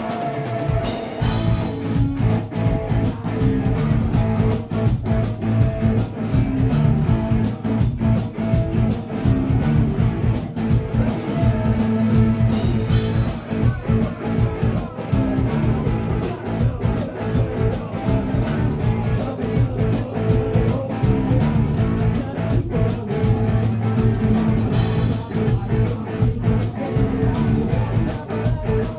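Live rock band playing a song: drum kit keeping a steady driving beat under electric guitar and bass guitar.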